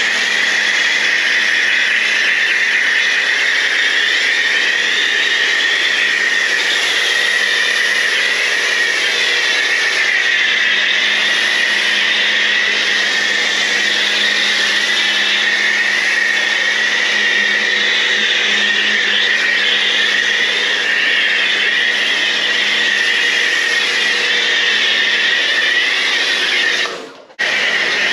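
Kärcher K2 electric pressure washer running, its motor and pump humming under the hiss of foam spraying from a foam cannon. It cuts out for a moment near the end and then starts again.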